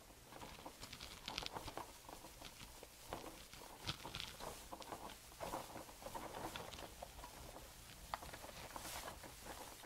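Faint rustling and handling of a nylon backplate pad and harness webbing being worked by hands, with a few light clicks and knocks scattered through.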